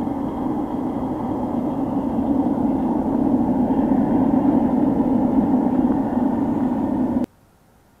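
Homemade sheet-metal furnace running with air forced in by a multicopter brushless-motor blower: a steady, loud rushing noise that grows slightly louder, then stops suddenly about seven seconds in.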